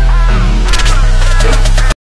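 Background music with a heavy, sustained bass line and a melody above it. A fast, sharp percussive beat comes in just under a second in, and the music cuts off abruptly at the very end.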